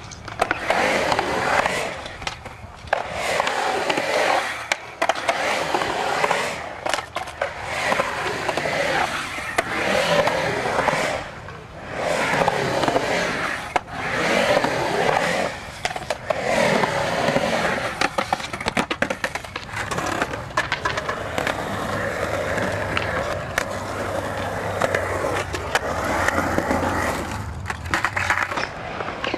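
Skateboard wheels rolling on a concrete bowl, the rolling rush swelling and fading as the rider carves up and down the walls. Sharp clacks come through at several points.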